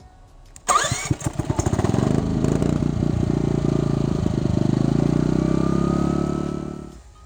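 Ryobi 1800-running-watt inverter generator electric-started: its engine fires under a second in, picks up speed, then runs steadily before fading away near the end.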